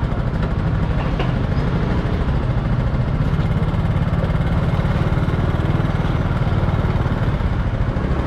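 A small motorbike engine idling close by, a steady low rumble.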